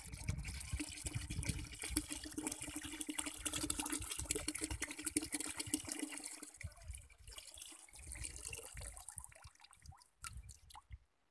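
Liquid poured in a steady stream from a plastic bottle into a plastic bucket, splashing. The stream stops about two-thirds of the way through, leaving scattered drips and light knocks as the bottle is emptied out.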